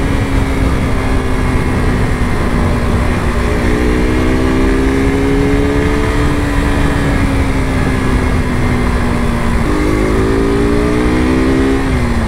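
KTM RC 200 sport bike's single-cylinder engine running at a steady cruise, its pitch drifting slowly, then stepping up and rising about ten seconds in and falling away near the end. A low rumble of wind on the microphone runs under it.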